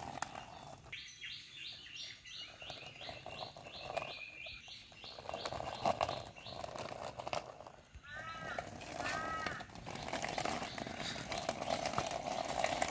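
Birds calling: a quick run of repeated high notes, about four a second, for several seconds, then two arched calls about eight seconds in.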